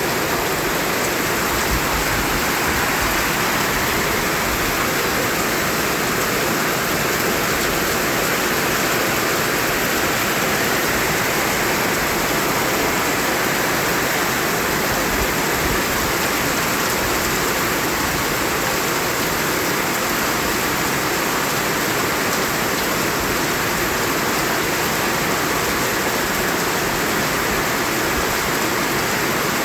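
Continuous white noise: a steady, unchanging hiss with no breaks or rhythm.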